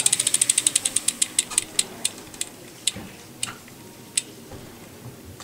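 BMX rear cassette hub freewheeling: the stock hub, tweaked to run loud, gives a rapid ratchet clicking that slows to single clicks as the wheel coasts down, and it dies out about four seconds in.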